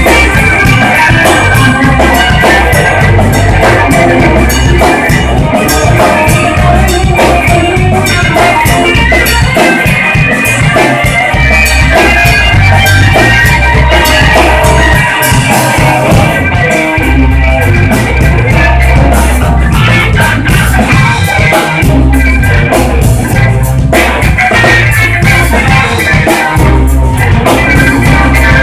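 Live blues band playing loud: electric guitar over a drum kit and a low bass line.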